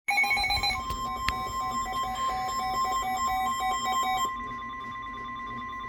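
Emergency alert attention tone ahead of a severe thunderstorm warning broadcast: a steady high tone near 1 kHz, with a lower beep pulsing about four times a second under it. The pulsing stops about two-thirds of the way through and the steady tone carries on.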